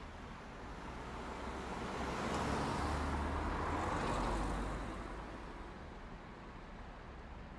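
A rush of noise over a low rumble that swells up about two seconds in, holds for a couple of seconds, then fades away.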